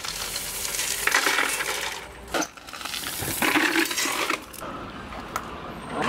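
Shovel scooping gravel and tipping it into a metal wheelbarrow: stones rattling and crunching in two long scoops, with a sharp knock between them.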